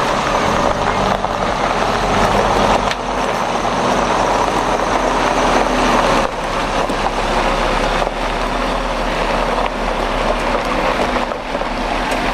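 Diesel engine of a Mercedes-Benz heavy-haulage lorry running steadily at low speed as the tractor unit drives slowly past, pulling a low-loader.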